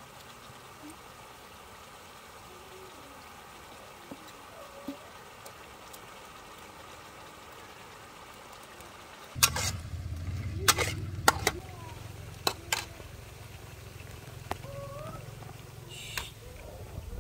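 Food simmering in a steel wok on a portable gas stove. About nine seconds in, a low steady rumble comes up, and a metal spoon clinks sharply against the wok several times.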